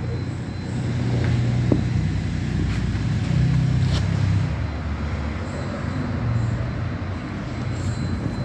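Hyundai H-1's D4CB four-cylinder common-rail diesel engine running with a steady low hum, a little louder for a second or so around the middle.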